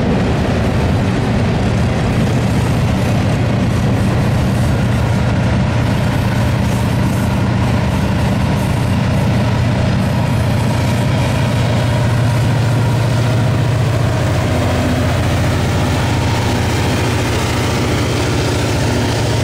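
Union Pacific freight cars rolling past on the rails, followed by a trailing diesel locomotive, the rear distributed-power unit, passing with its engine running. The low engine hum is strongest about two-thirds of the way through and carries on steadily as the train moves away.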